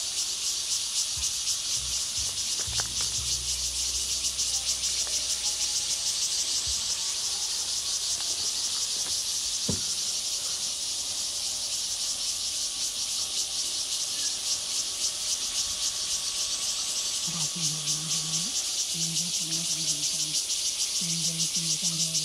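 A loud, continuous chorus of cicadas buzzing with a fast even pulse. A faint low engine rumble from the slow-moving rail maintenance vehicle sits under it in the first few seconds, and short low hums repeat near the end.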